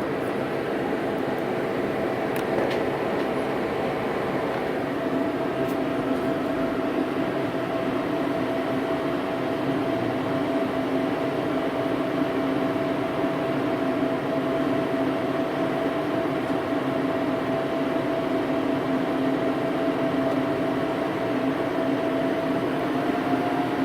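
Steady machine whir and hum with two held tones; the higher tone rises slightly near the end.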